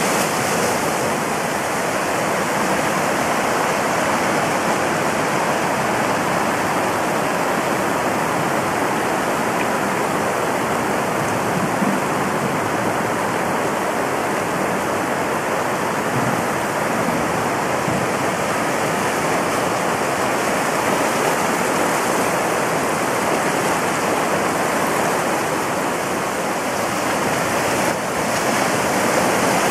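Swollen River Calder in flood, a steady loud rush of churning brown water surging through and against a stone bridge.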